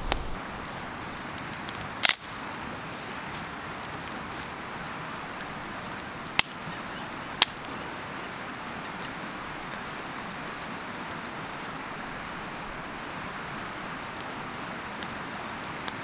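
Small twig campfire catching, giving a few sharp crackling pops, one louder snap about two seconds in and two more a second apart near the middle, over a steady background hiss.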